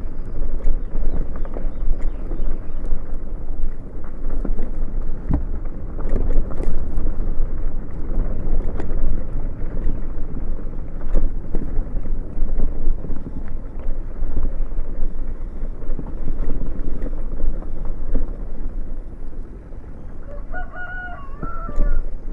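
Motorcycle riding along a rough gravel road, engine and road noise mixed with heavy wind buffeting on the microphone. Near the end a rooster crows briefly.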